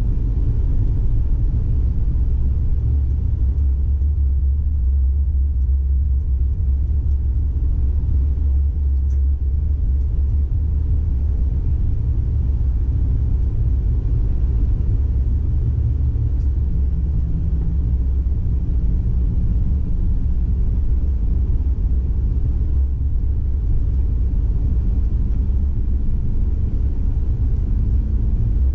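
PESA Twist II 2010N low-floor tram running, heard from the driver's cab: a steady low rumble of the running gear on the rails. About halfway through, a faint drive hum comes in and slowly rises in pitch.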